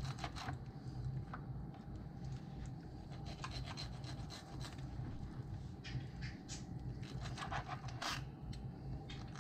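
Knife sawing and scraping through catfish flesh on a wooden cutting board: irregular rasping strokes over a low steady hum.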